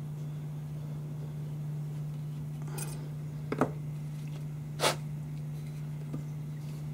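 Hand tools handled on a workbench: a taper-pin reamer in a T-handle tap wrench is drawn out and set down, with a light scrape about three seconds in, then a sharp metal click and, about a second later, a short knock. A steady low hum sits underneath.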